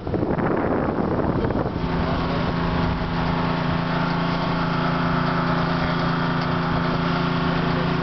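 A boat's engine running steadily with an even hum, while the vessel moves through the water. For the first second or two a rough rush of noise covers it.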